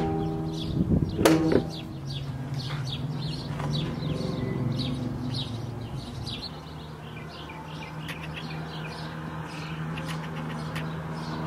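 Two sharp knocks in the first second and a half, then a steady low hum under frequent short bird chirps.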